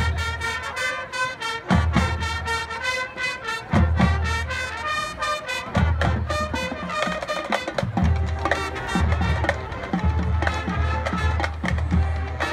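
High school marching band playing a halftime show: brass winds sounding held notes over a drumline's rapid strokes, with heavy low bass notes coming in and dropping out in blocks.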